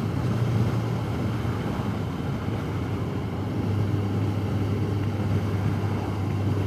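Honda CBR1100XX Super Blackbird's inline-four engine droning steadily at cruise under a rush of wind and road noise, heard from a helmet-mounted camera; the engine note drops slightly in pitch about four seconds in.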